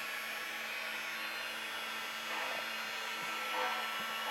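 Steady whir of Lionel O-gauge model trains running on the layout, with a constant electrical hum underneath.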